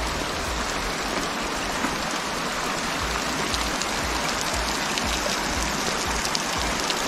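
Shallow stream running over a bed of rounded river stones, a steady hiss of flowing water.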